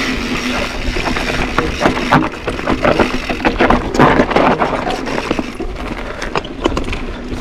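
Mountain bike rolling down a dirt singletrack: tyres crunching over dirt and loose rocks, with a clatter of knocks and rattles from the bike over rough ground, thickest a couple of seconds in, and steady wind noise on the microphone.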